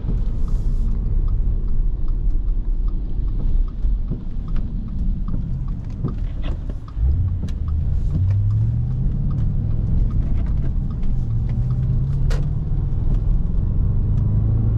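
Inside-cabin sound of a 2009 Audi S5's 4.2-litre V8 driving on a wet road: a steady low rumble with road noise. The engine note dips about seven seconds in, then comes back stronger and steadier as the car pulls away again.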